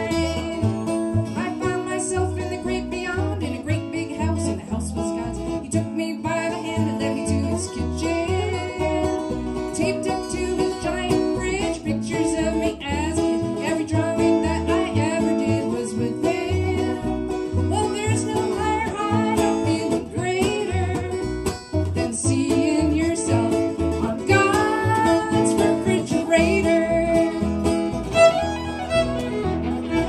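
Acoustic string band playing an instrumental passage: a fiddle carrying the melody over strummed acoustic guitar and walking upright bass notes.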